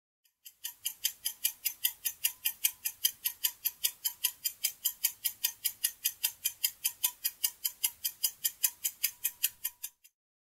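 Countdown-timer sound effect: a fast, even clock ticking, about five ticks a second, that runs out and stops near the end as the answering time expires.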